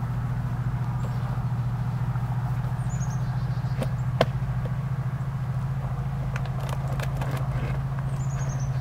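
A steady, loud low mechanical hum with a fast pulse, like a running motor, throughout. Over it come a sharp knock about four seconds in, fainter knocks and scuffs later as a man climbs a tree trunk on a wooden board, and a few short high chirps.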